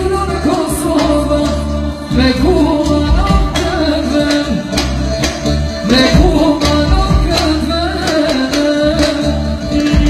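Live band music: a drum kit keeping a steady beat under a singing voice and a wavering melody line, over a strong bass.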